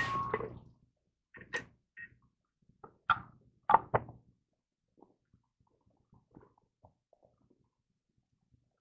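Scattered light clicks and knocks of an abrasive disc being changed on a Lap-Sharp powered sharpening machine, switched off, over the first few seconds, then near silence.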